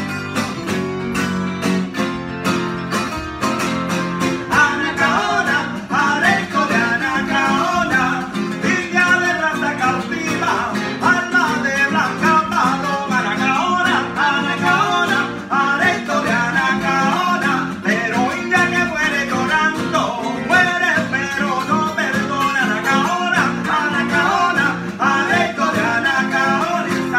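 Two acoustic string instruments, a nylon-string classical guitar and a smaller guitar-like instrument, strummed and picked together. Two male voices start singing about four seconds in.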